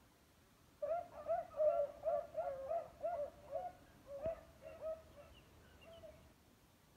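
Beagles baying while running a rabbit on scent: quickly repeated bays, about three a second at first, then thinning out and stopping about six seconds in.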